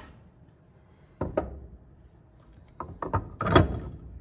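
Steel balance shaft and other metal engine parts being set down and handled on a wooden workbench: a single knock about a second in, then a quick run of clunks and clicks near the end, the loudest among them.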